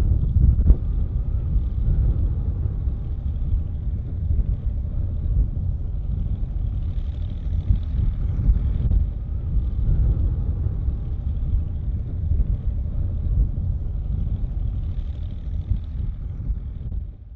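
A steady low rumble with a faint hum above it, fading out near the end.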